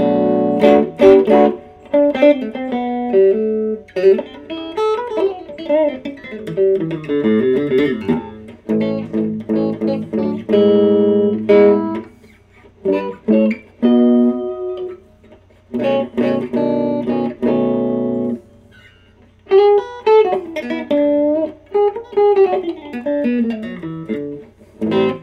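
Epiphone Wilshire P90 Reissue electric guitar, with the middle pickup position selected so both P90 pickups are on, played through a tube amp. It plays a series of chords and single-note phrases with short pauses between them, some notes bending in pitch.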